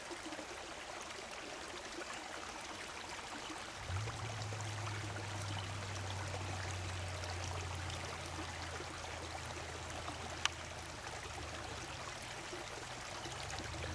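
Shallow stream running over rocks, a steady rush of water. About four seconds in, a steady low hum starts underneath, and a single sharp click comes later on.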